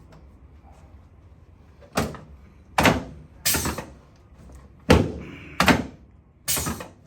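Six sharp thumps about a second apart: the drop sections of a chiropractic table slamming down under the chiropractor's thrusts as a face-down patient is adjusted.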